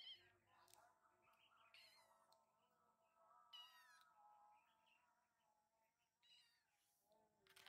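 Kittens meowing faintly: several short, thin, high-pitched calls a second or two apart.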